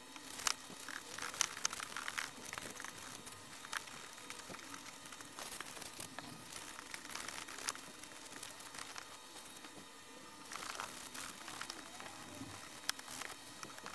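Paper towel rustling and crinkling as it wipes a plastic instrument case, in short scattered spells with small clicks.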